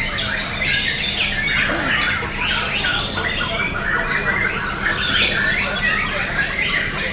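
White-rumped shama singing a dense, varied run of whistles and chirps, with other caged songbirds singing over it.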